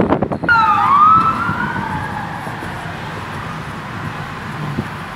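Emergency vehicle siren wailing, its pitch sweeping slowly down and up. It starts abruptly about half a second in and sounds over low road noise.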